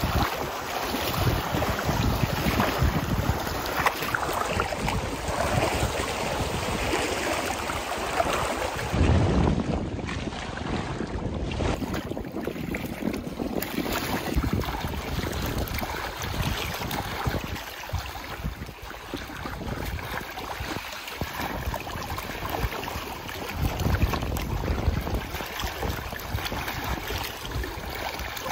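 Wind gusting across the microphone, with lake water lapping. The gusts swell and fade, strongest about nine seconds in.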